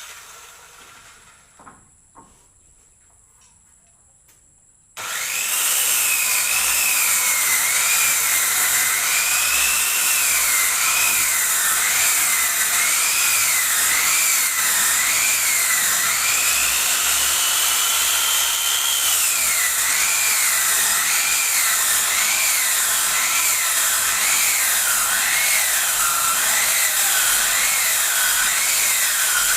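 A few faint knocks, then a bench-mounted circular saw ripping a wooden plank lengthwise. Its high whine dips and recovers about once a second as the board is pushed through in steps.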